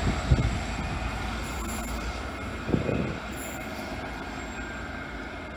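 Diesel locomotive moving away along the track, its engine and wheel noise fading, with a few brief high squeals from the wheels on the rails and a single bump about three seconds in.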